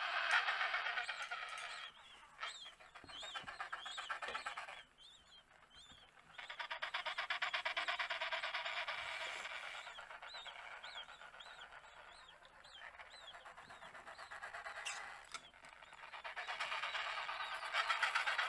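Captive penguins calling together: overlapping harsh, pulsing brays with higher arching chirps above them. The calling drops away briefly twice and swells back, loudest at the start and near the end.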